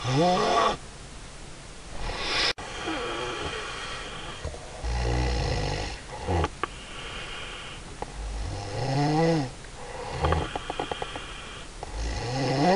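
A woman snoring in deep sleep: rasping breaths and low rumbles in a repeating cycle, with loud moan-like exhales that rise and fall in pitch near the start, about nine seconds in, and at the end.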